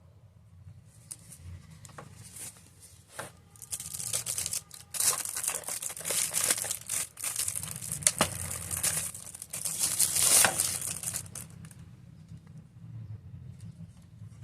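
Packaging crinkling and tearing as it is handled and opened, a dense crackle that builds over the first few seconds, is loudest in the middle and dies away about eleven seconds in.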